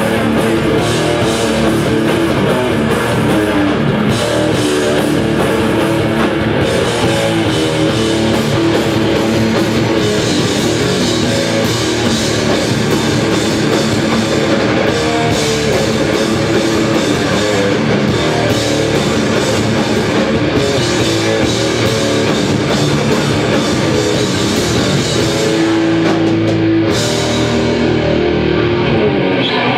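Live heavy metal band playing loud: distorted electric guitars and bass over a drum kit, heard from the crowd. The music thins out near the end.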